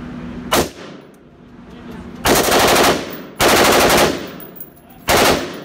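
Rifle firing on full auto at an indoor range: a brief report about half a second in, two bursts of under a second each in the middle, and another brief report near the end, each ringing on in the range's echo.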